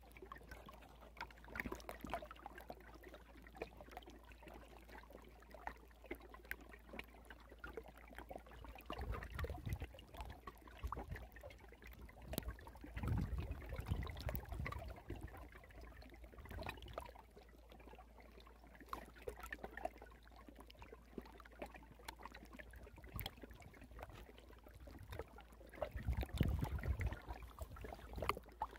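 Faint water sounds: trickling and lapping with small scattered splashes. Three times the low wash swells up and fades.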